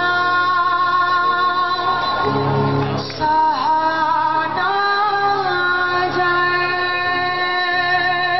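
A woman singing long held notes live, with a rock band's electric guitars accompanying her.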